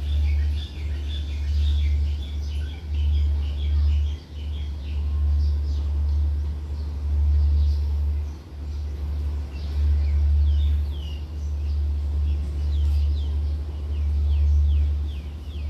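Wind buffeting the microphone in an uneven low rumble that swells and dips, with small birds chirping in quick series over it, mostly in the first few seconds and again near the end.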